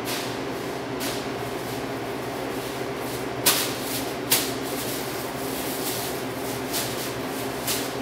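Steady low room hum with a few scattered sharp knocks; the two loudest come about three and a half and four and a half seconds in.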